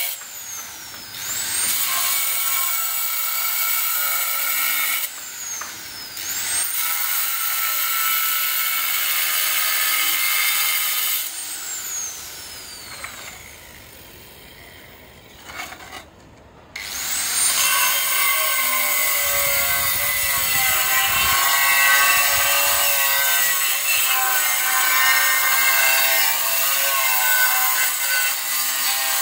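Handheld angle grinder whining as its disc cuts curved lines into a red floor tile. It is stopped and restarted three times, each stop a falling whine as the disc runs down and each restart a rising one, with a quieter gap of a few seconds in the middle. The pitch wavers under load while cutting near the end.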